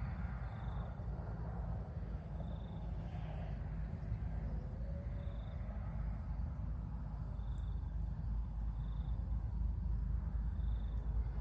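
Outdoor field ambience: insects keep up a steady high-pitched drone, with short faint chirps repeating about once a second, over a continuous low rumble.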